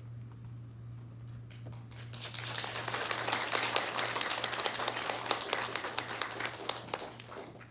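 Audience applauding after a piano performance: the clapping builds up about a second and a half in, holds, and dies away near the end. A steady low hum runs underneath.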